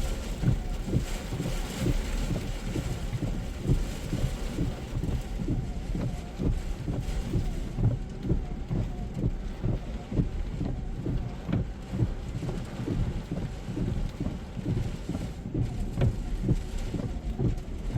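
High storm wind buffeting the microphone in rapid, irregular low rumbling gusts, over a steady hiss of heavy rain.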